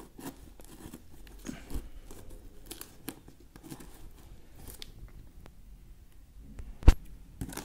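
Packing tape and plastic wrapping on a parcel being cut and torn open: scattered crinkling and rustling, with one sharp knock near the end.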